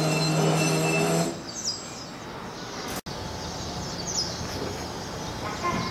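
Electric train running past the platform with a steady low motor hum that stops about a second in. Then a quieter station background with a few high bird chirps near the end.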